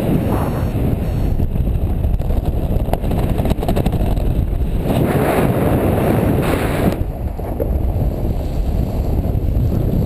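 Airflow buffeting a camera microphone on a paraglider's riser in flight: a steady low rumble that swells louder and hissier for about two seconds in the middle before easing back.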